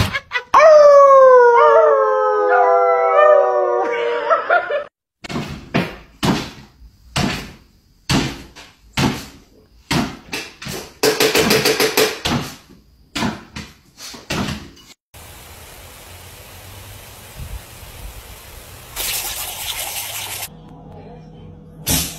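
A dog howling: a long, loud howl of several overlapping voices falling slowly in pitch, lasting about four seconds. It is followed by a string of short sharp knocks and thumps.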